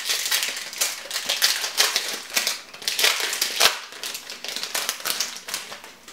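Yu-Gi-Oh trading cards being handled: a dense run of quick paper rustles and scrapes as the cards are slid and shuffled through the hands, fading near the end.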